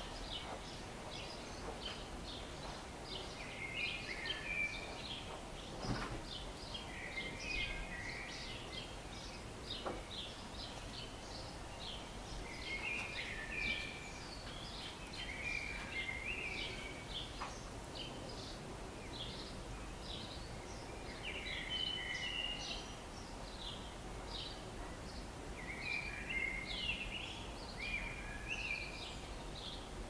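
House sparrows chirping, short cheeps coming in clusters every couple of seconds, over steady outdoor background noise.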